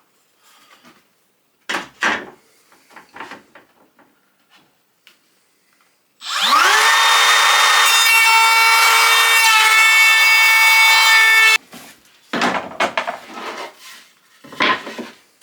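A few wooden knocks and handling sounds, then about six seconds in an electric router spins up with a rising whine, runs at a steady high pitch for about five seconds, and cuts off suddenly, followed by more knocks of wood being handled.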